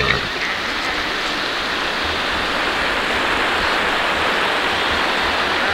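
Mountain stream rushing over a rocky bed, a steady even noise.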